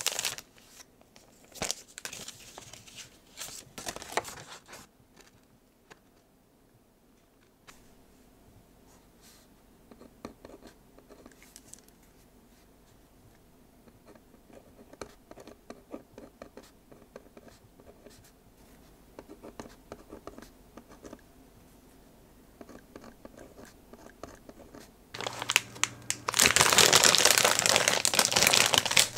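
Cellophane wrapping crinkling as a letter set is unwrapped, then a long faint stretch of soft pen-on-paper scratches and small ticks. Near the end, a plastic bag of frozen gyoza rustles and crinkles loudly over a low steady hum.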